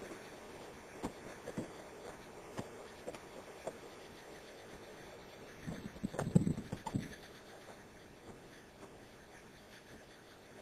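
Scattered light knocks and taps, then a short cluster of louder thumps about six seconds in.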